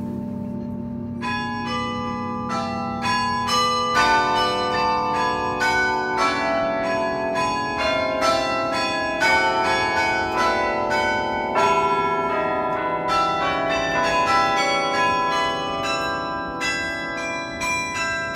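Sather Tower's carillon being played from its baton keyboard: many tuned bells struck one after another and in chords, a melody that starts about a second in over the lingering ring of earlier notes.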